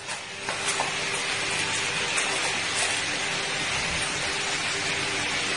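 A steady, even hiss with a few faint clicks.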